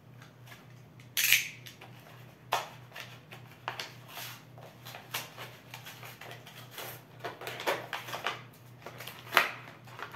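Chair assembly hardware being rummaged through by hand: a run of small clicks, rattles and rustles from packaging and small metal parts, with a louder rustle about a second in and a sharp knock near the end.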